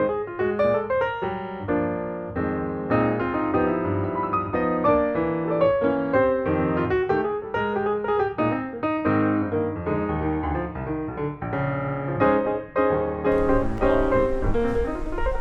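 Background piano music, a quick, bright melody of many short notes. About 13 seconds in, a hiss of background noise joins it.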